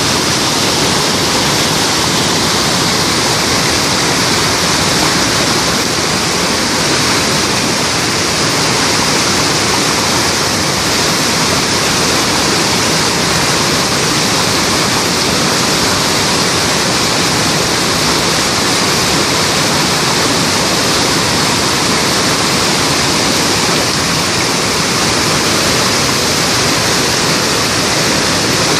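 Waterfall: water pouring and splashing in a loud, steady, unbroken rush.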